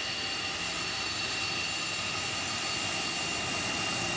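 Jet engines of a BAe 146 air tanker running steadily: an even rush with a high whine held on top.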